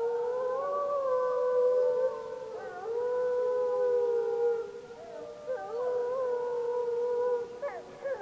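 A pack of gray wolves howling in chorus: several long, drawn-out howls at different pitches overlap and waver, with a few short quick pitch-sweeping calls near the end. This is the pack answering a pup's howls.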